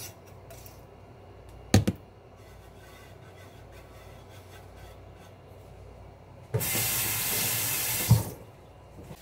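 A sharp knock about two seconds in, like something hard set down on the counter. Near the end a kitchen faucet runs at full flow for about two seconds, then stops with a knock.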